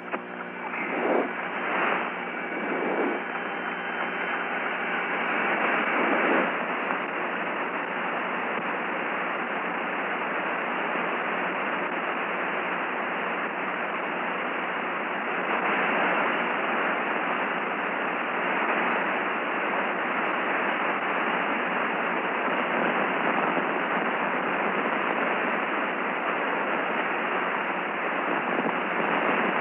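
Steady hiss of radio static on an open, band-limited voice channel, with a few louder crackling flurries in the first six seconds.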